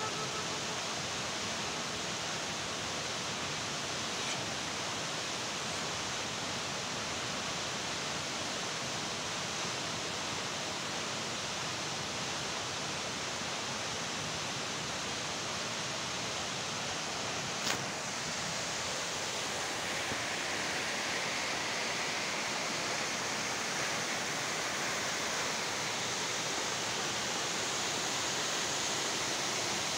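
Steady, even rushing noise with no distinct events, broken once by a short sharp click about eighteen seconds in.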